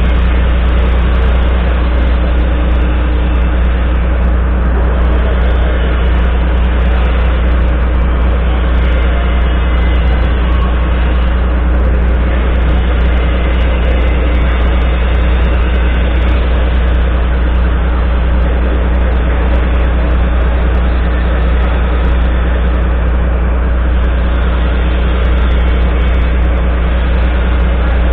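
Volvo FMX 440 truck's six-cylinder diesel engine idling steadily, heard close beside its exhaust stack.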